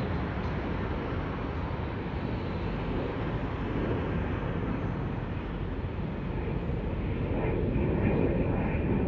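Steady road and engine noise of a car driving along city streets, growing a little louder near the end.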